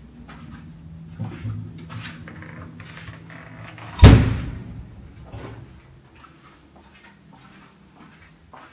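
A door swinging shut with one loud bang about four seconds in, after a few lighter knocks.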